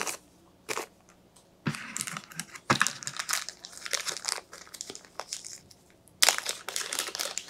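Plastic packaging crinkling in irregular bursts as small game pieces are handled, with a single click within the first second and louder crinkling near the end.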